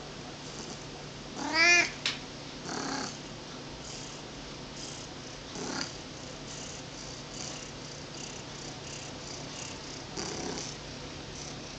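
Domestic cat meowing: one loud meow that rises and then falls in pitch, about one and a half seconds in, followed by a few short, much quieter sounds.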